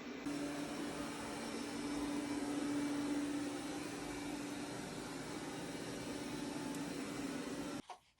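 Steady machine hum with a constant low drone over a hiss, stopping abruptly near the end.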